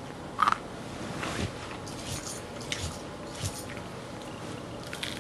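Faint sounds of someone eating fried chicken: chewing with a few soft crunches and mouth clicks scattered through, the loudest a short one about half a second in.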